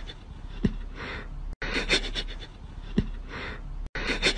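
A cat sniffing at a socked foot: short breathy sniffs with a soft low thump, the same pattern repeating about every two and a half seconds.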